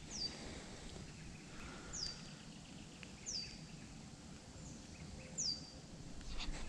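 A bird calling over and over, each call a short high note sliding downward, about every second and a half, above faint outdoor background noise.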